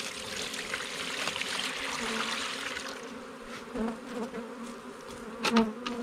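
Sugar syrup poured from a bucket splashes into a wooden hive-top feeder for about three seconds, then stops. Honeybees buzz steadily throughout, and a couple of sharp knocks come near the end.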